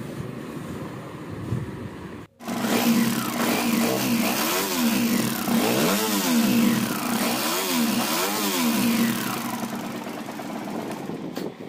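Suzuki Gixxer SF single-cylinder motorcycle engine running and being blipped, its pitch rising and falling about four times in the middle before settling back to idle. The engine has a valve-like top-end noise that the mechanic traces to a worn camshaft and rocker arms.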